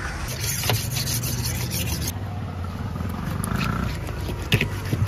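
Scraping and rubbing as a large stingray is handled and cut on a wet wooden table, over a steady low outdoor rumble. A few sharp knocks of the knife on the board come near the end.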